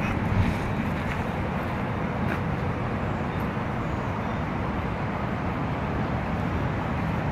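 Steady low rumble of city traffic, an even wash of vehicle noise with no single event standing out.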